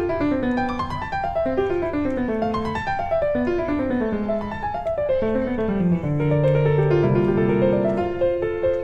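Background piano music: quick falling runs of notes, with longer held notes in the second half.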